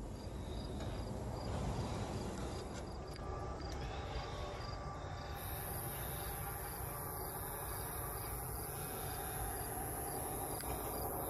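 Crickets chirping steadily over a low, even rumble. A high-pitched steady hiss sets in about halfway through.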